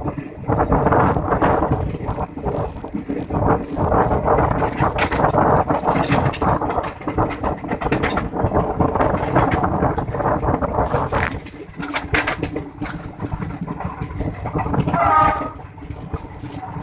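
Passenger train running past at close range: a steady rumble and clatter of the wheels on the rails.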